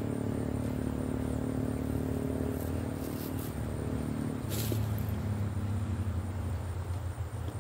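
A motor vehicle engine running steadily, its low hum shifting in pitch about halfway through. Over it is a faint high pulsing trill of insects, and about four and a half seconds in there is one brief scratchy noise.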